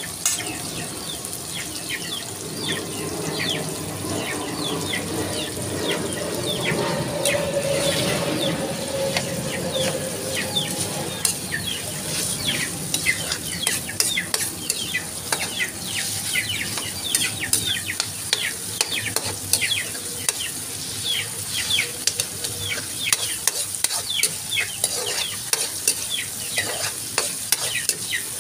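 Sliced tomatoes and onions sizzling in hot oil in an aluminium wok. A metal spatula scrapes and clinks against the pan many times as they are stirred.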